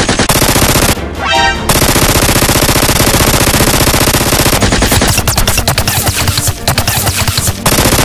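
Automatic-gunfire sound effect dubbed over toy blasters: long bursts of rapid machine-gun fire, broken briefly about a second in and sparser in the second half.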